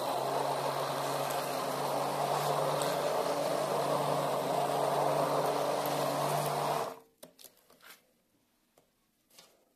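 Hand-held immersion blender running steadily, puréeing strawberries and sugar in a stainless-steel bowl, with a constant motor hum under the churning. The motor cuts off about seven seconds in, followed by a few light knocks.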